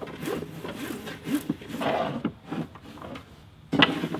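Braided polyester rope rubbing and dragging on a wooden tabletop as rope ladder steps are handled and slid along it, with one sharp knock near the end.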